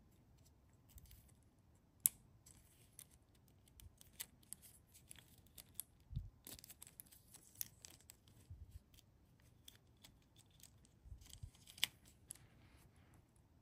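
Faint clicks and scratches of tiny parts being handled, as a thin wire handle is worked into a miniature bottle crate. There is a sharp click about two seconds in and a low bump about six seconds in.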